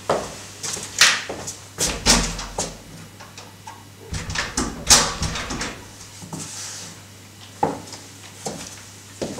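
Irregular knocks and clicks of a wooden door and its handle and lock being worked, densest in the first half, over a steady low hum.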